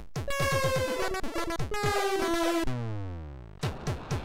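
Commodore 64 SID chip (MOS 6581) music: a chiptune whose lead notes slide down in pitch over quick synth drum hits. About two and a half seconds in, the tune breaks off into a falling sweep of tones that fades, followed by a few clicks.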